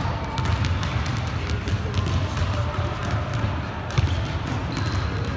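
Running footsteps and scattered thuds on a hardwood gym floor, with one louder impact about four seconds in, and children's voices in the background.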